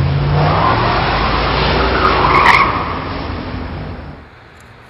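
A car skidding: engine noise under a rush of tyre noise, with a tyre squeal about two and a half seconds in, fading out after about three seconds.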